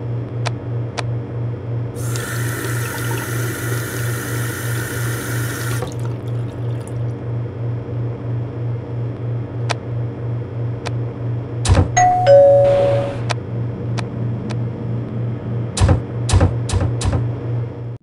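A drink dispenser pouring into a cup as a hissing stream for about four seconds, then scattered sharp clicks and a two-note falling ding-dong chime near the middle, over a steady low hum that pulses about three times a second.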